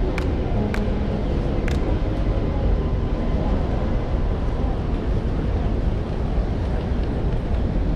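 Rainy city street ambience: a steady low rumble of traffic and wet-street noise, with a few sharp clicks in the first two seconds.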